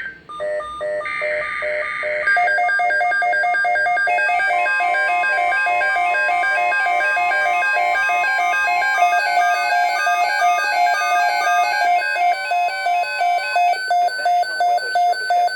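NOAA Weather Radio emergency alert: a short burst of digital SAME header data, then the receiver's electronic alarm of fast-changing beep tones over the steady 1050 Hz warning tone, signalling an incoming severe thunderstorm watch. Near the end the beeps settle into an even pulse of about four a second.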